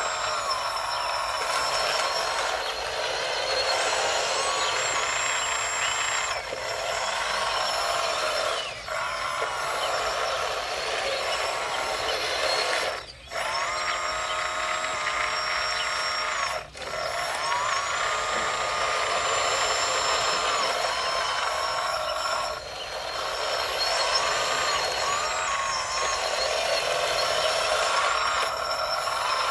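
Electric drive motors and hydraulic pumps of RC scale construction models running, a mechanical whine whose pitch rises and falls as the machines drive and work. There are two brief breaks, about 13 and 16.5 seconds in.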